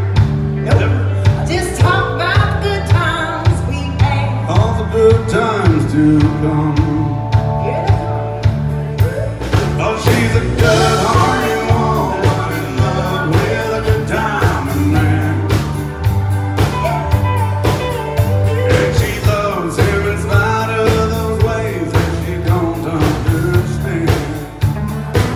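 Country song sung over a band, with drums keeping a steady beat under a repeating bass line.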